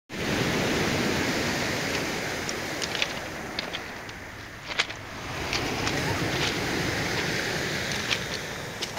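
Sea surf washing on a pebble beach, swelling and easing, with scattered sharp clicks of pebbles knocking together.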